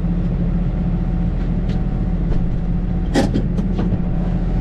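Case Maxxum 125 tractor's diesel engine running steadily, heard from inside the cab. A short sharp click about three seconds in.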